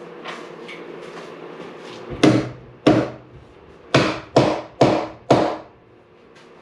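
Six hammer blows knocking into a heavy oak slab: two spaced apart, then four in quicker succession, each with a short ring.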